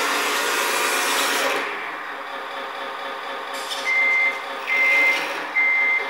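Tamiya Scania RC truck's electronic sound unit: a loud engine sound as the truck drives in, dropping to a steady idle about a second and a half in, then three reversing beeps as the truck backs up.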